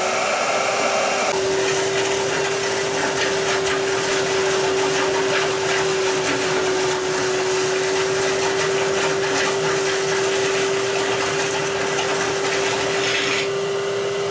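Wet/dry shop vac running steadily with a constant motor whine over a rush of air, sucking standing floodwater out of a pump house pit.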